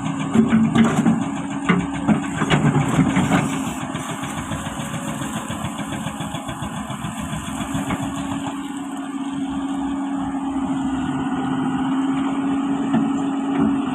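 Excavator engine running steadily, with a series of clanks and knocks over the first three or four seconds, then settling to an even drone.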